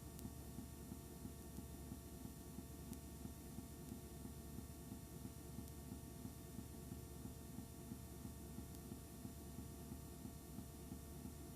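Low steady electrical hum with a regular low throbbing pulse underneath; no speech or music.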